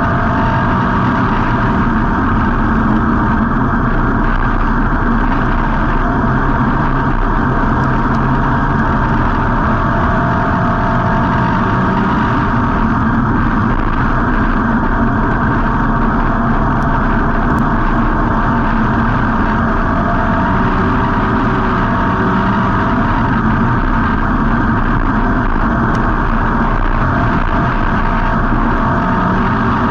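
A dirt-track street stock race car's V8 engine running steadily, heard from on board the car, with road and chassis noise mixed in.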